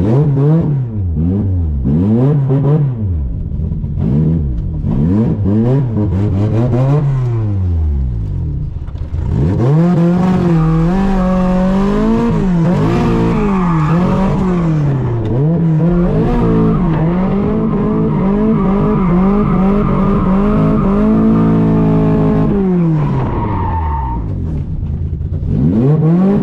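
A 1980s Toyota Corolla's four-cylinder engine being driven hard: it revs up and drops back again and again in short bursts, then is held at high revs for about fourteen seconds, its pitch wavering. Tyres squeal partway through.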